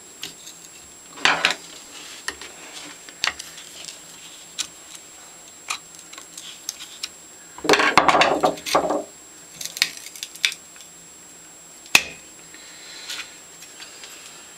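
Metal clicks and clatter of a Stanley No. 113 compass plane's steel and cast-iron parts being handled and adjusted, with a longer clattering run about eight seconds in and a single sharp click near twelve seconds.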